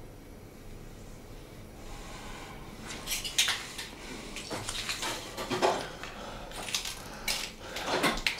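Dishes and cutlery clinking and knocking in an irregular run of light strikes, starting about three seconds in.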